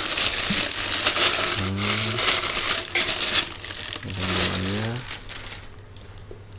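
Clear plastic wrapping crinkling and rustling as it is pulled off a stainless-steel motorcycle exhaust pipe, dying down near the end.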